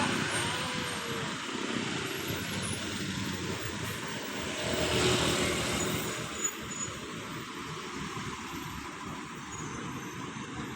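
Road traffic passing, fading from the start, with a vehicle passing loudest about five seconds in.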